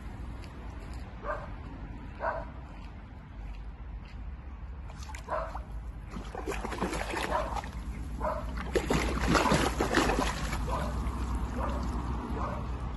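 English cocker spaniel giving short barks and whines while wading in a shallow stream, with water splashing that is loudest about nine to ten seconds in.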